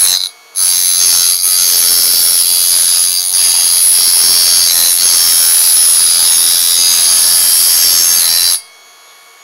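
Parkside electric sharpening station's grinding wheel grinding the serrated edge off a steel kitchen knife: a loud, steady, hissing grind as the blade is held against the turning stone. It gives a short burst at the start, then runs on and stops suddenly near the end when the blade is lifted. This grinding leaves an awful burr on the back of the blade.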